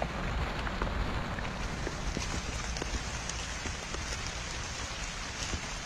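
Steady rain falling on pond water and wet ground, with scattered sharp drop ticks through an even hiss.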